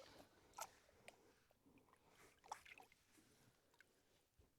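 Near silence, with a few faint, short splashes of water as a musky is held in the lake to be released.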